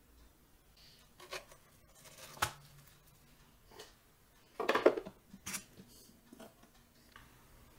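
A few light clicks and knocks of hard plastic. The loudest is a short rattling clatter about five seconds in, as the lid of a plastic vacuum storage container is set on and pressed down.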